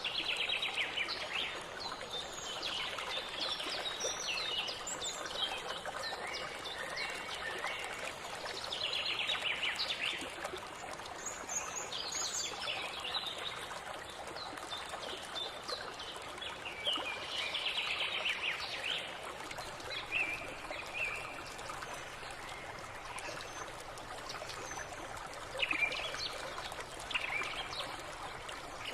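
Birds chirping and singing in repeated short phrases over a steady rushing hiss.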